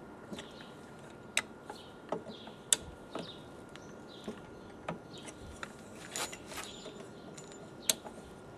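Sharp metallic clicks and knocks, a few seconds apart, as a steel dough hook is seated and tightened in a drill press chuck. Faint chirping repeats in the background.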